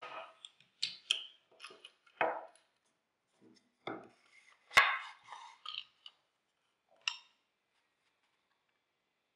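Wooden jigsaw guide and a plywood piece knocking and sliding on a wooden tabletop as they are handled: a scattered run of light wooden knocks and clatters, the sharpest about five seconds in, ending about seven seconds in.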